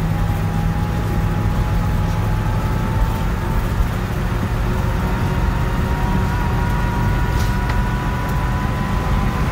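Old motorhome driving at road speed, heard inside the cab: a steady low engine and road drone, with a thin whine that rises slowly in pitch.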